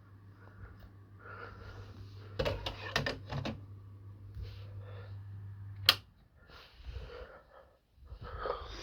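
Low steady hum of a ceiling fan's motor. A few clicks come around two and a half to three and a half seconds in, then a sharp click about six seconds in, after which the hum stops: the fan being switched off. Breathy sniffing is heard on and off.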